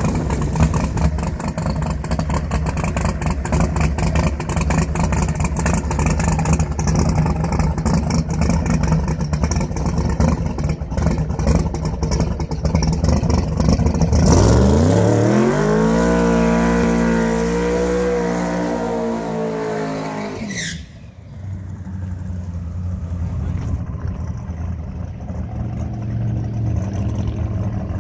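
Drag racing car's engine idling with a rough, choppy lope, then revved hard in a burnout: about halfway through the pitch climbs steeply and holds high for several seconds before cutting off abruptly, and the engine drops back to a lower idle.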